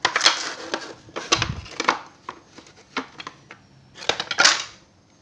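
Plywood boards and a metal amplifier front panel being handled and moved about: clattering knocks and scraping in three bursts, with a dull thump about a second and a half in.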